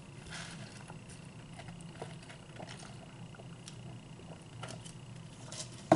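Sipping from a paper fountain-drink cup through a straw, with faint handling clicks, and a sharp knock near the end as the cup is set down. A steady low hum runs underneath.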